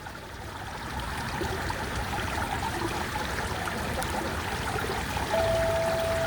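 Swimming-pool water flowing and trickling steadily. About five seconds in, a single metallophone note is struck and rings on.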